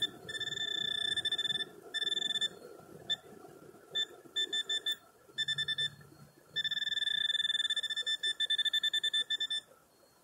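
Handheld metal-detector pinpointer probing a freshly dug hole, sounding a high-pitched electronic tone. It comes as several long steady tones broken by short beeps and quick runs of rapid pulsing as the tip is worked over a buried metal target.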